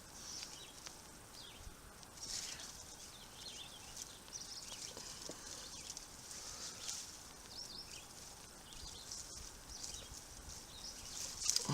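Faint outdoor ambience with short, scattered high bird chirps and occasional soft rustling.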